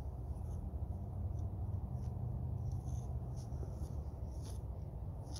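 Short, faint scraping strokes of a metal palette knife working oil paint on canvas, over a steady low rumble.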